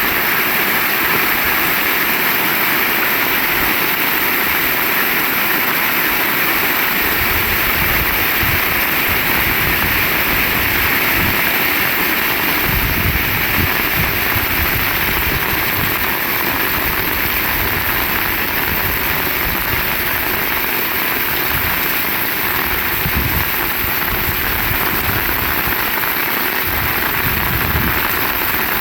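Heavy rain falling steadily and evenly, with an uneven low rumble coming and going underneath.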